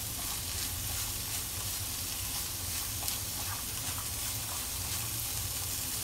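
Diced carrots, chopped green vegetables and minced meat sizzling in a hot wok as they are stir-fried, with the faint scrape of wooden chopsticks stirring through them. A steady low hum runs underneath.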